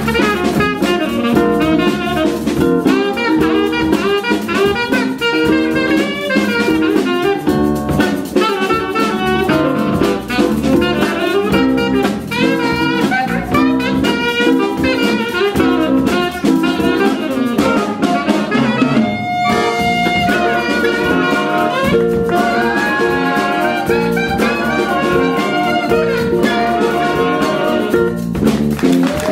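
Live jazz band playing an up-tempo tune, with a saxophone out front over a drum kit and the rest of the ensemble.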